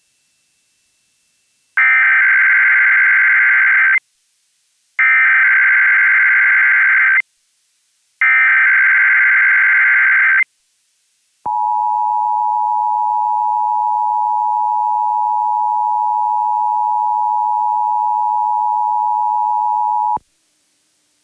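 Emergency Alert System Required Monthly Test: three roughly two-second bursts of buzzy SAME header data, separated by short silences. They are followed by the EAS two-tone attention signal, held steadily for about nine seconds before it cuts off.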